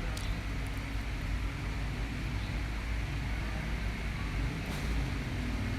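Steady low background rumble, with two faint clicks, one just after the start and one near the end.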